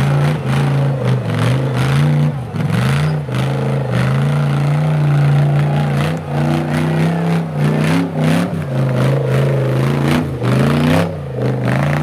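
Off-road trial prototype buggy's engine revving hard and dropping back again and again as it crawls over rock and mud, with clatters and knocks from the vehicle working over the ground.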